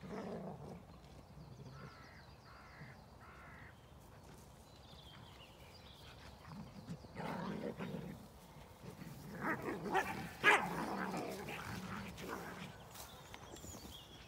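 A dog barking in a few short bouts, the loudest around the middle, with crows cawing three times early on and small birds singing faintly in the background.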